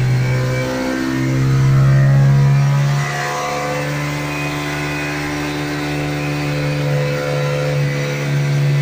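Honda RS150R single-cylinder four-stroke engine with an open V1 air filter and a CJ EZOS 28 mm carburettor, running under load on a dyno. The revs are held fairly steady, swelling louder about two seconds in and settling back about a second later.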